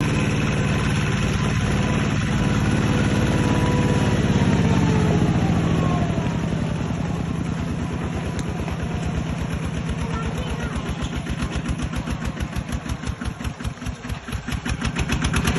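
Engine of a Kubota machine running. It is steady at first, then settles to a slower, pulsing beat whose firing strokes can be heard more and more distinctly; the sound dips near the end before picking up again.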